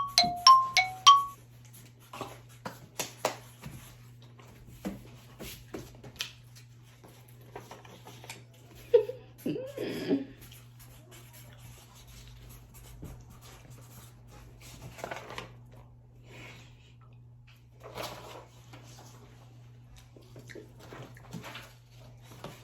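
A quick repeating two-note chime for about the first second, then scattered light clicks and knocks of dishes and food being handled over a faint steady hum, with a brief low murmur about ten seconds in.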